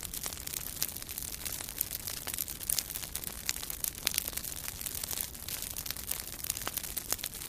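Crackling fire sound effect: a steady hiss dotted with many irregular sharp pops and snaps.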